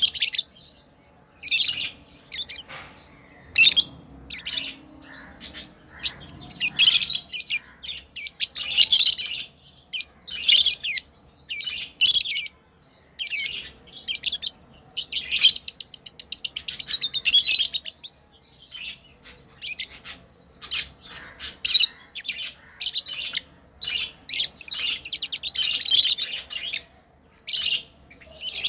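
Pet lovebirds chirping: a busy stream of short, high, sharp chirps with a few longer chattering runs in between.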